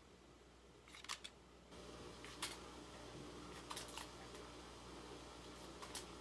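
A few faint, sharp, irregularly spaced clicks of scissor blades snipping small nicks into the edge of a strip of shipping tape, over a low steady hum.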